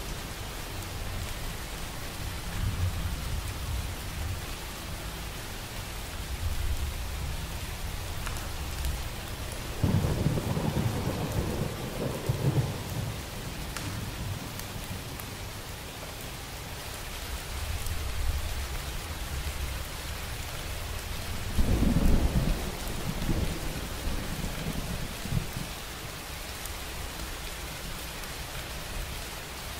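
Steady rain with low rumbling thunder underneath. Two louder peals of thunder, about ten seconds in and about twenty-two seconds in, each lasting a few seconds.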